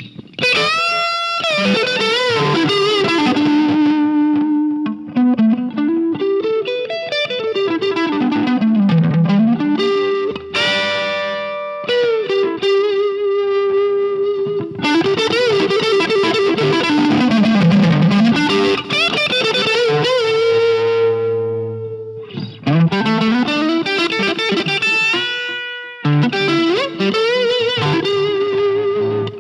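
Overdriven electric guitar played through a Line 6 amp modeller's Plexi-style distorted preset, a riff with long slides up and down in pitch and a few short breaks between phrases.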